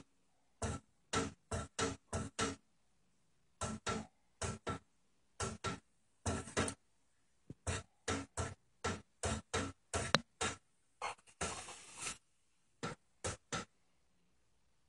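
Window blind slats clicking as a cat flicks them back and forth with its paw: sharp clacks in irregular quick runs, about thirty in all, with one longer rattle about three quarters of the way through.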